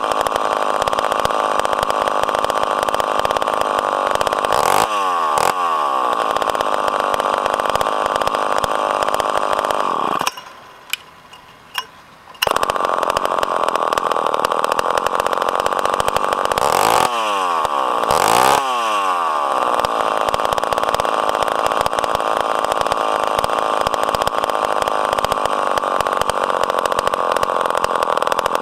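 Poulan 744 gear-drive bow saw's 74 cc 245 two-stroke engine, fitted with a custom exhaust stack, running at high revs with no cut under way. Twice the revs drop and climb back up. Near the middle the sound drops away for about two seconds, with a couple of clicks.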